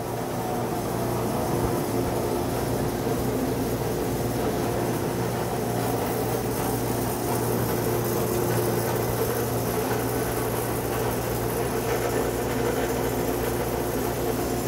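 1960 Bauerle DM71 thickness planer running with no board feeding, a steady machine hum mixed with the whirr of a small shop dust collector.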